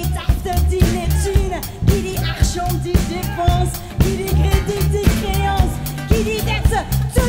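A live band is playing an upbeat song. A woman sings into a microphone over a drum kit keeping a steady beat of about two hits a second, with acoustic guitar and bass underneath.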